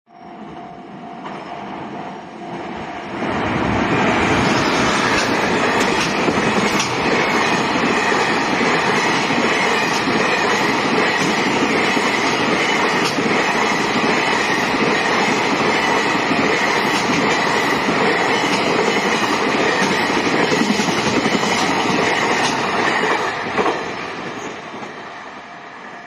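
Fukuyama Rail Express container freight train passing over a level crossing. The crossing's warning bell rings at first, then the train arrives about three seconds in, with a steady loud clatter of wheels over the rails for about twenty seconds before it fades as the last wagons pass.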